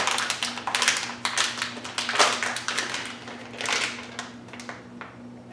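Clear plastic packaging bag crinkling and crackling as hands pull and twist at it, trying to tear it open without a knife. The crackle comes in irregular bursts and thins out near the end.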